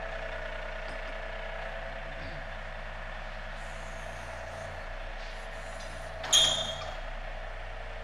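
A John Deere 3E-series compact tractor's diesel engine runs steadily with a constant drone and a held whine. About six seconds in there is one short, loud hiss with a high squeal, lasting about half a second.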